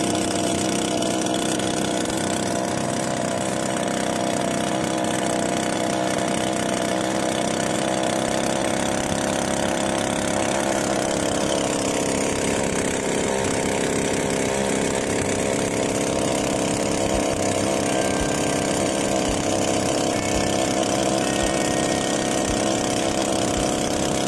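Engine of a small fibreglass skiff running steadily with the boat under way. Its pitch dips slightly about halfway through, then settles.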